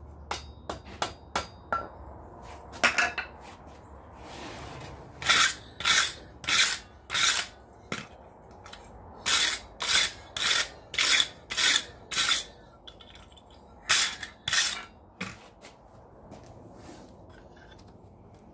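Hand hammer striking hot steel on an anvil horn: a few light taps, then heavier ringing blows in runs of four to six, about two a second, with pauses between, bending the spoon's rebar handle.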